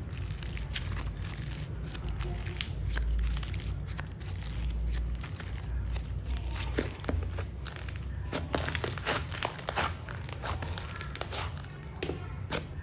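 Soft slime being squeezed and stretched by hand, giving irregular wet crackles and pops as air pockets burst, thickest in the second half. A steady low hum runs underneath.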